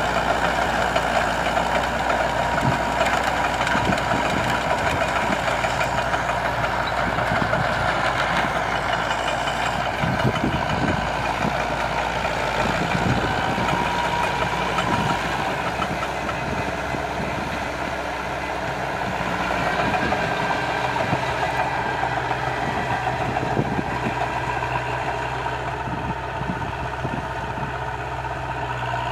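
Massey Ferguson tractor's diesel engine running steadily under load while its rotary tiller churns through dry soil, with scattered knocks from clods.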